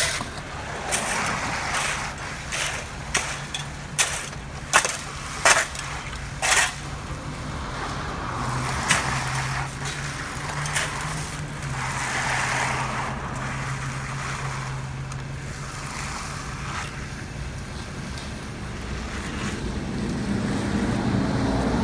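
Shovels scraping and knocking as wet concrete is shoveled and spread, a run of sharp strikes in the first several seconds, then the steady low hum of a concrete truck's engine running alongside the pour.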